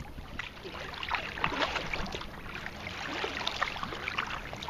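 Water splashing and lapping around a sea kayak moving through the water: a dense, irregular patter of small splashes.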